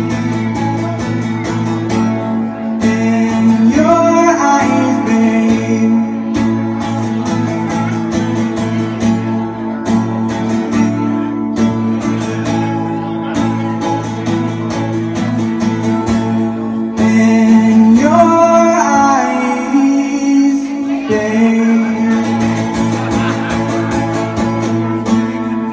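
Acoustic guitar played live with quick, steady picking, with wordless singing rising in pitch twice.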